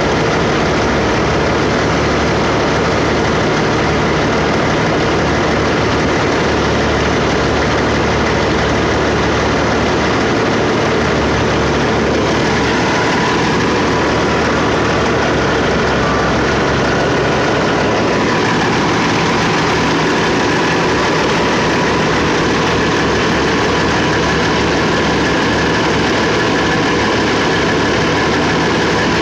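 Heavy diesel engines running steadily at close range, from a truck and skid-steer loaders, with small shifts in engine note but no pauses.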